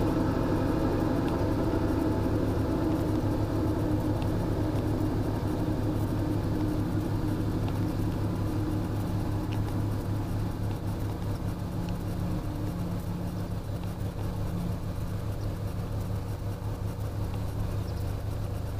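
Old car's engine running steadily as it drives along, its hum slowly fading with distance.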